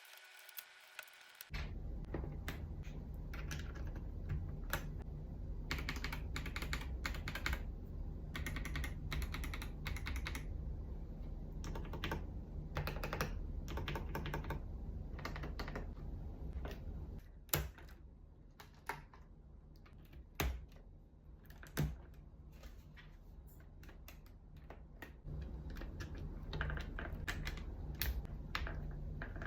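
Fast typing on a mechanical keyboard with Akko V3 Cream Yellow Pro linear switches: a steady stream of keystrokes that begins after a second or so. Past the middle it thins out to a few single, louder key presses, then picks up again near the end.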